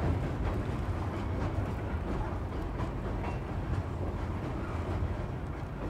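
Coal freight train running across a steel truss railroad bridge: a steady low rumble with faint scattered clicks.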